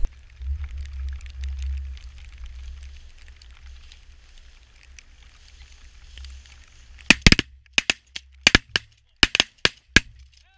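A rapid volley of shotgun blasts from several hunters firing at once, about ten shots in three seconds starting about seven seconds in. Before the shooting, wind rumbles on the microphone.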